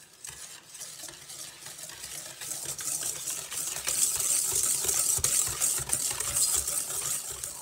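Hand wire whisk beating egg yolks and sugar in a stainless steel bowl: a rapid scraping and clinking of the wires against the metal, getting louder about halfway through.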